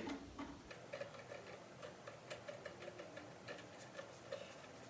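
Faint, light clicks and ticks at uneven intervals as screws are turned in by hand.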